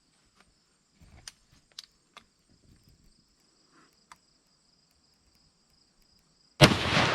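Crickets chirring steadily with a few faint clicks, then near the end a single loud rifle shot from a .308 Browning bolt-action, its report rolling on after the blast.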